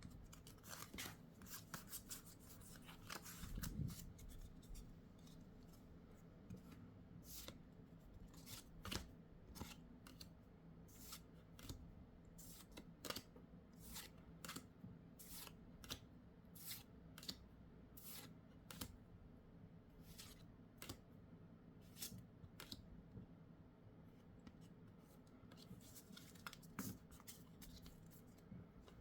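Faint, irregular sharp snips and clicks, about one a second, from hands working Pokémon card collection-box packaging and cards.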